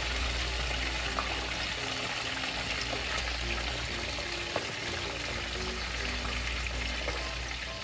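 Steady sizzle of hot vegetable oil deep-frying tempura-battered zucchini flowers, with faint music underneath.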